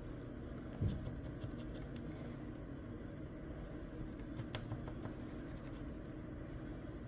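Scratch-off lottery ticket being scratched, short scrapes in a few small clusters, the busiest about four to five seconds in, over a low steady hum.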